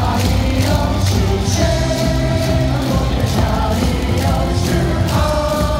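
Lotte Giants baseball cheer song played over a stadium's loudspeakers, with the crowd singing along to a steady beat.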